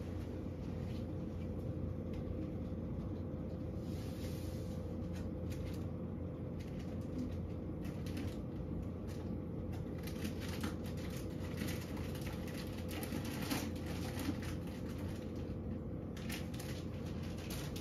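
Steady low room hum with a faint steady tone above it, overlaid by faint scattered clicks and rustles of handling, a little busier in the second half.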